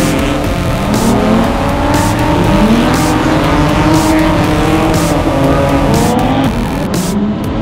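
Drift cars sliding through a corner, engines revving up and down hard with tyre noise from the damp pavement.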